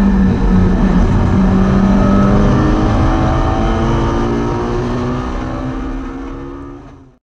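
Hartwell-tuned Hillman Imp race car's rear-mounted four-cylinder engine running hard on track, heard onboard. The engine note shifts gradually in pitch, and the sound fades out near the end.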